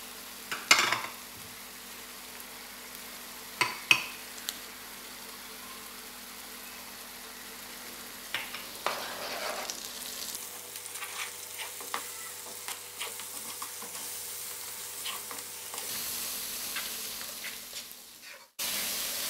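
Onion, tomato and spice masala sizzling in hot oil in a karahi while a spoon stirs it, scraping against the pan. A few sharp knocks come in the first four seconds, and the stirring scrapes and clicks grow frequent in the second half.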